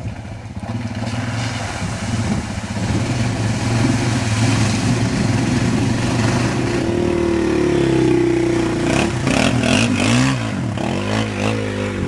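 Quad (ATV) engine running and growing louder, then revving up and down several times in the second half, with some clattering near the end.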